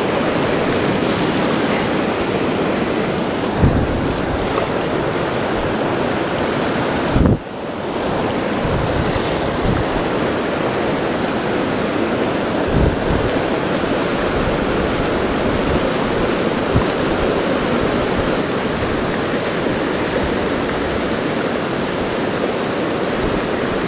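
Mountain creek running high and fast, whitewater rushing steadily over boulders, with a few brief low thumps.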